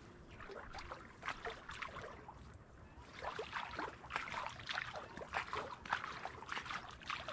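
Irregular splashing and sloshing in shallow marsh water, with light rustling, getting busier and louder about three seconds in.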